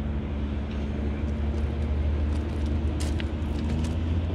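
Steady low rumble of heavy truck traffic, with a few short clicks about three seconds in.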